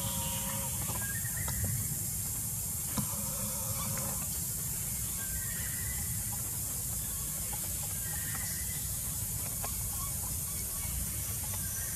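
Outdoor tree-canopy ambience: a steady high hiss over a low wind rumble, with a few faint, short pitched calls and one or two soft clicks.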